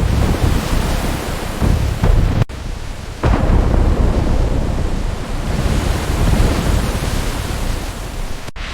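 Storm at sea: heavy rain and wind with deep rumbles of thunder, which swell suddenly about a second and a half in and again about three seconds in. The sound drops out briefly twice.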